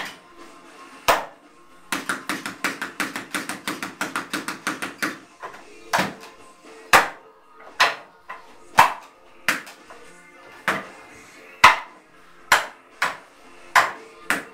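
Wing Chun wooden dummy (mook jong) being struck: sharp wooden knocks as forearms and palms hit its arms and trunk. About two seconds in comes a quick run of about six or seven knocks a second lasting some three seconds, then single knocks roughly once a second. Faint background music plays underneath.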